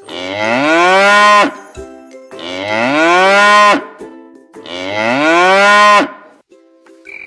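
A cow mooing: three long moos about two seconds apart, each rising in pitch.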